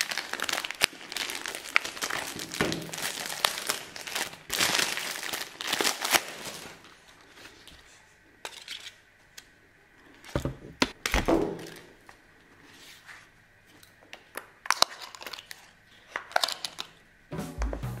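Clear plastic shrink-wrap crinkling and tearing as it is peeled off a power strip, busiest in the first seven seconds or so, then quieter rustles and knocks of the cable and strip being handled. Music begins near the end.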